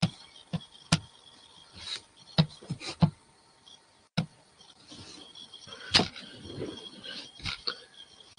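About eight irregular knocks and clicks a fraction of a second to a second or so apart, with soft rustling between them from about halfway on.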